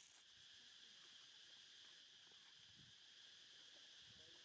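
Near silence, with a faint steady high-pitched drone.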